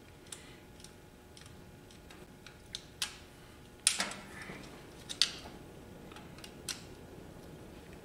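Sharp clicks and taps of a screwdriver and hands working the terminal screws of a Square D magnetic starter, loudest in a cluster about four seconds in and again about a second later.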